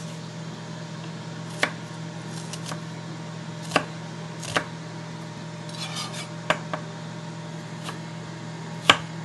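Chef's knife cutting through an onion and striking an end-grain wooden cutting board: about nine sharp, irregular taps, the loudest near the end, over a steady low hum.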